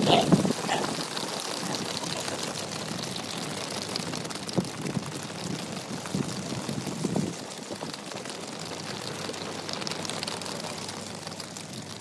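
Hooves of a running American bison herd clattering on an asphalt road: a dense, steady patter with a few louder thumps between about four and seven seconds in.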